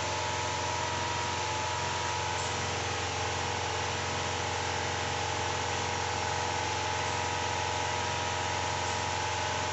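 Steady hum and hiss of an electric appliance running in a small room, with several constant tones and no change in level.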